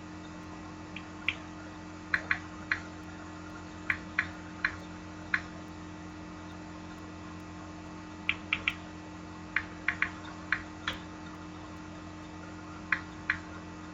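Sharp, irregular clicks in small clusters, about eighteen in all, from someone working a computer's keys and mouse, over a steady low electrical hum.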